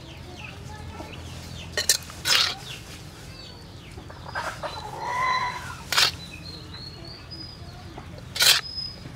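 Metal ladle scraping and knocking against a wok while scooping sauce out, with sharp scrapes about two, six and eight and a half seconds in. A chicken clucks about five seconds in, and small birds chirp faintly.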